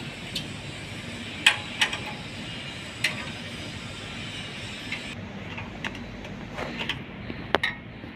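A spanner clinking against steel nuts and a bolted flange as the nuts are worked: a string of sharp metallic clinks at irregular intervals, the loudest about one and a half seconds in, over a steady background hum.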